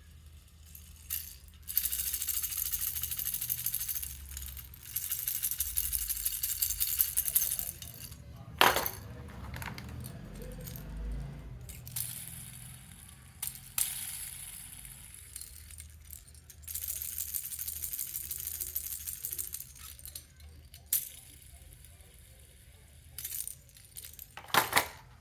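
Baby toy rattle shaken in about four spells of two to three seconds each, a bright high-pitched rattling, with single sharp knocks between the spells and a loud one near the end.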